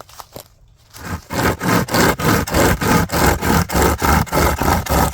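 British army folding trench saw cutting through wood with fast, even back-and-forth strokes, about four a second, starting about a second in after a few light knocks as the blade is set.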